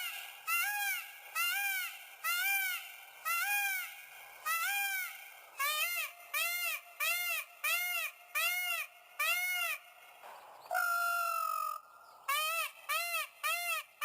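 Indian peafowl (peacock) calling: a long run of short, loud calls, each rising and falling in pitch, coming faster after the first few seconds. A single longer, held call breaks the run about eleven seconds in.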